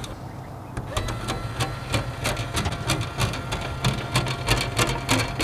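Electric motor of an automatic aluminum chicken coop door running as it raises the sliding door: a steady mechanical whirr with a thin whine and a stream of small clicks, starting about a second in after a brief pause at the bottom.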